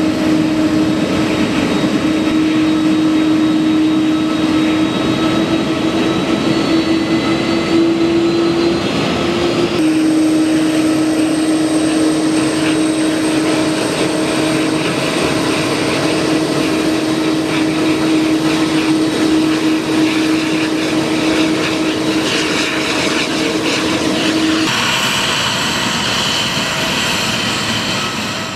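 Airbus A330-200's GE CF6-80 turbofan engines running at low taxi power as the airliner taxis: a steady jet rush with a constant low hum. The sound shifts abruptly twice and fades out at the end.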